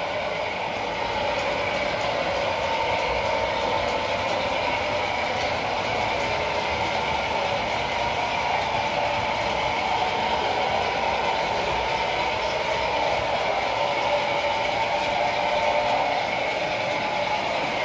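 Model trains running on a layout, a steady mechanical running noise of small motors and wheels rolling on the track.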